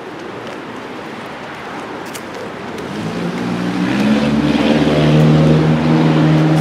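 A motor vehicle's engine hum rises in about three seconds in and grows louder, steady in pitch, over the rush of wind and handling noise from walking.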